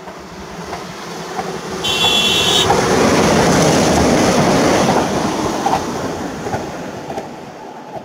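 Newag Impuls II 36WEd electric multiple unit passing at speed, its rumble rising to a peak and fading as it goes by, with a brief high horn blast about two seconds in.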